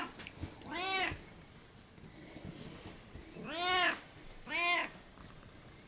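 Domestic cat meowing: short calls that each rise and fall in pitch, coming in two pairs, one near the start and one a little past the middle.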